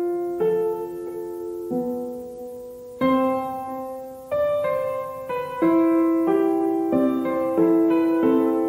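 Gentle piano background music: slow chords, each struck and left to ring and fade before the next, about one a second.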